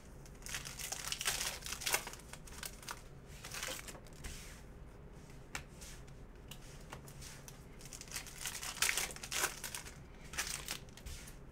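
Foil wrapper of a Panini Prizm basketball retail pack being torn open and crinkled by hand, in several crackly bursts with quieter gaps between, loudest about a second and a half in and again near nine seconds.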